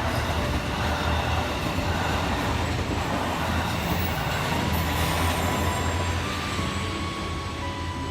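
A train running past on the line, a steady heavy rumble of wheels on rails that eases off slightly near the end.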